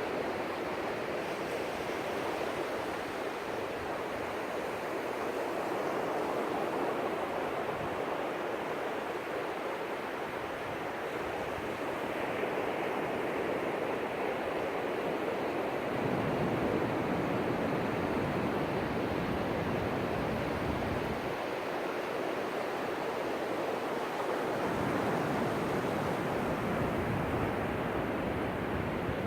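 Ocean surf breaking and washing up the beach: a steady rush of water that swells louder as waves come in, most strongly a little past halfway and again near the end.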